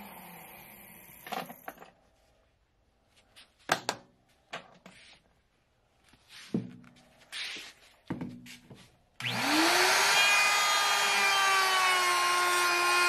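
Porter-Cable 690 router winding down, then several knocks and clatters as a plywood panel is handled. About nine seconds in, the router starts up, its whine rising quickly to a steady pitch that sags a little as it rounds over the panel's edge.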